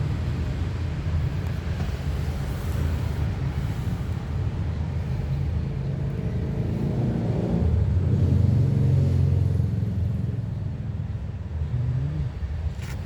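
Rumble of a moving road vehicle, engine and road noise together, growing louder about two-thirds of the way through and then easing off.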